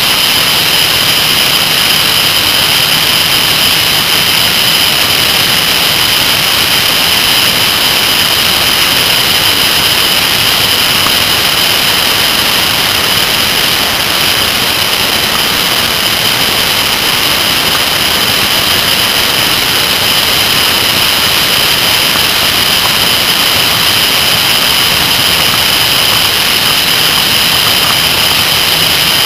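Steady rush of wind and road noise on a motorcycle-mounted camera's microphone at riding speed, with a steady high whistle over it; the bike's engine is barely distinct beneath.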